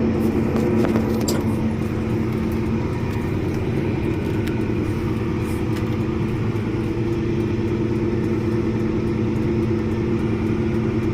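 Heavy farm vehicle's engine running at a steady speed, heard from inside the cab, with a few light clicks and rattles in the first second or so.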